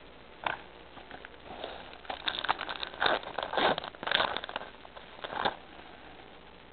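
Foil Pokémon trading-card booster-pack wrapper crinkling and tearing as it is opened, in irregular crackly bursts from about two seconds in; a single short crackle comes just before.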